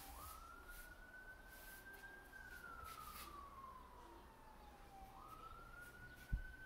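Faint siren wailing: one thin tone jumping up, then sweeping slowly up and back down over about five seconds before jumping up again. Faint rustles and clicks throughout, and a single thump near the end.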